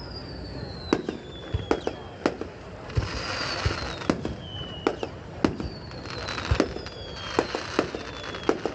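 Fireworks display: shells bursting with sharp bangs in quick, irregular succession, over high whistles that slowly fall in pitch. A crackling hiss swells about three seconds in and again around six to seven seconds.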